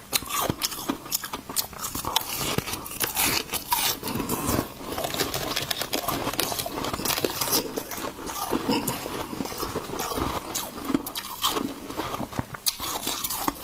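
A person biting and chewing slushy balloon-frozen ice close to the microphone: a dense run of wet crunches and crackles.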